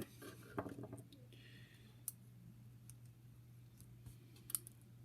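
A few faint, sharp clicks of small model-locomotive parts being handled as the pilot truck is worked off, over a low steady hum.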